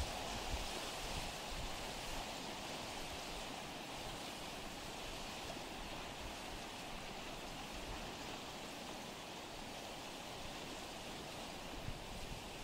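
Running water rushing steadily, as of a stream.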